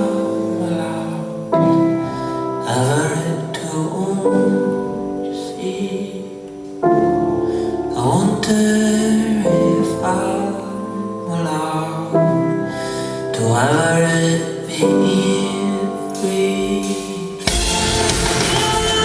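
Live concert music: a male voice singing in high falsetto over sustained piano chords. Near the end the full band comes in, suddenly fuller and louder.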